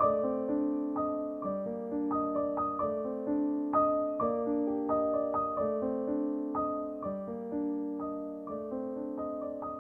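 Background piano music: a flowing tune of notes struck two or three times a second over lower sustained notes.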